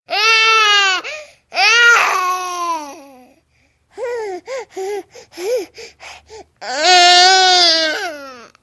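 Infant crying: two long wails, then a run of short, catching sobs, then a final long wail that stops just before the end.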